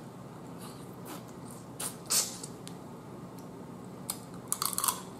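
Close-miked mouth sounds of eating boiled blue crab: wet smacks and clicks, a couple about two seconds in and a quick cluster near the end.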